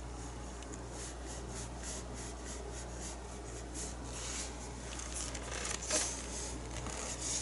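Paintbrush stroking acrylic paint onto a canvas: a run of short, soft scratchy strokes, several a second, with one louder scrape about six seconds in, over a steady low hum.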